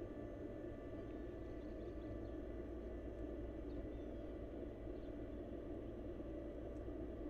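Steady low background rumble and hiss with faint steady tones, and a few faint high chirps.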